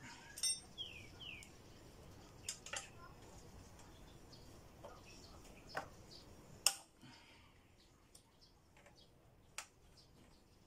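Metal hand tools clinking and clacking on a motorcycle's front brake caliper bolts while the caliper is being unbolted from the fork leg. Scattered short metallic knocks, the loudest about two-thirds of the way in. Faint bird chirps near the start.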